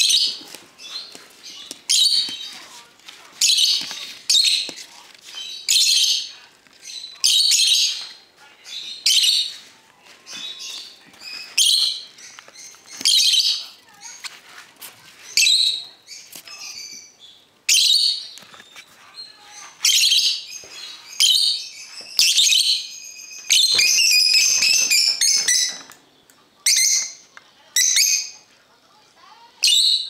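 Parrot chicks calling over and over, short harsh calls coming about every second and a half, with a longer run of calls about three quarters of the way through.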